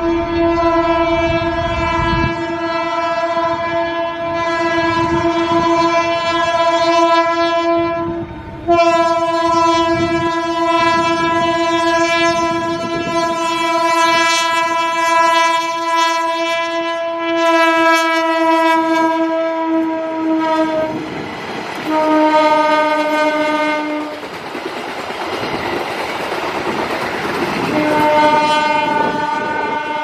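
Diesel locomotive's horn sounding the long 'semboyan 35' signal: one steady blast with a brief break about eight seconds in, held until about two-thirds of the way through, then a shorter blast at a slightly lower pitch. Between that and a final blast near the end, the train's wheels rumble and clack over the rails.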